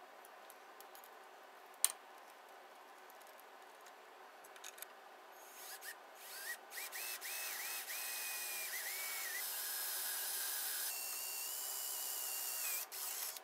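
A single sharp click, then a cordless drill running in short spurts before running steadily for a few seconds while boring pilot holes for self-tapping screws into the metal side of a planer. Its whine steps up in pitch partway through and cuts off near the end.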